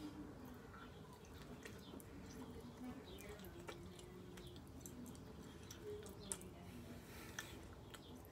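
Faint chewing and small wet mouth clicks from eating a burrito, with occasional soft sounds of the tortilla being pulled apart by hand.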